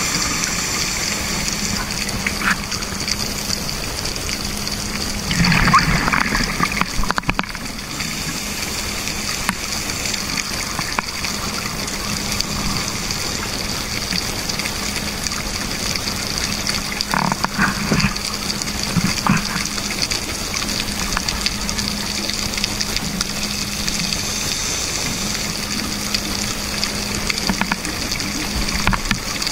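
Underwater sound of scuba divers breathing through their regulators: a steady hum and hiss, with two louder rushes of exhaled bubbles, about five seconds in and again about seventeen seconds in.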